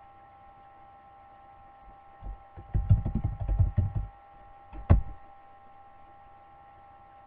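Computer keyboard typing: a quick run of key clicks and thumps starting about two seconds in, then a single sharper keystroke a little under a second later, the Enter key sending the typed message. A faint steady electrical hum lies underneath.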